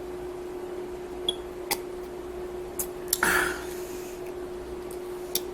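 A steady electrical hum in a quiet room, with a few light clicks of cups being handled and a short breathy noise about three seconds in.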